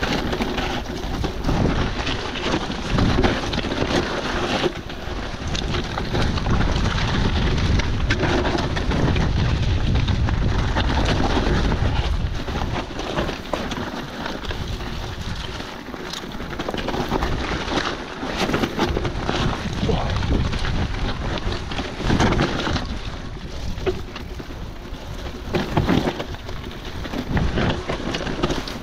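E-mountain bike riding down a wet, muddy, eroded trail: tyres churning through mud and water and the bike rattling and knocking over bumps, with heavy wind rumble on the microphone.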